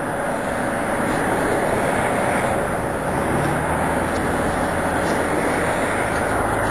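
Steady rushing roar of Upper Yosemite Fall, an even noise with no breaks or surges. A faint low hum joins it about three seconds in.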